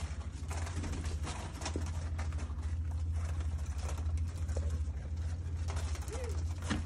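A loft of ringneck doves shuffling and pecking, with irregular light clicks and scuffs over a steady low hum. One brief dove call comes near the end.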